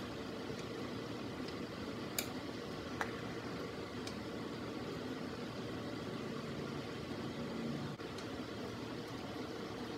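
Steady room hum with a few faint clicks and scrapes as a knife spreads mayonnaise on a slice of bread.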